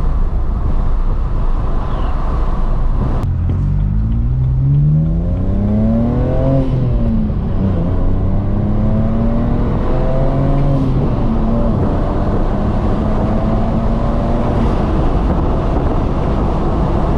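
BMW 335i's N54 twin-turbo inline-six pulling through the gears in a manual car: the engine note rises, drops at an upshift about six and a half seconds in, rises again, drops at another shift near eleven seconds, then holds steady at cruise over heavy road noise. The engine is running smoothly, its misfire cured by new index 12 injectors, coil packs and spark plugs.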